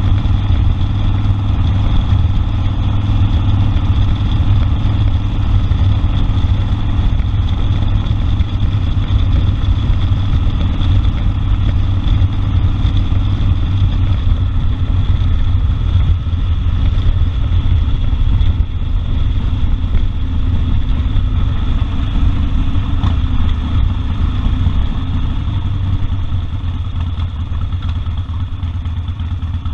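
Harley-Davidson Sportster 1200 Custom's air-cooled V-twin running steadily with a low exhaust note, easing off slightly near the end.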